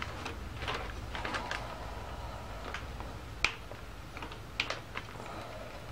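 Scattered small clicks and taps of hands working a radiator hose clamp onto a motorcycle radiator hose, with one sharper click about three and a half seconds in and a few more close together near the end.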